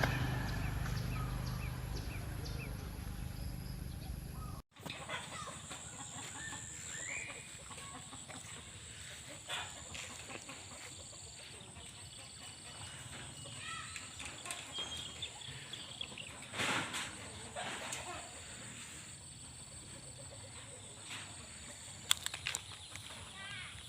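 Outdoor yard sounds with chickens clucking, a steady high-pitched drone and scattered short clicks. A louder low hum cuts off abruptly about five seconds in.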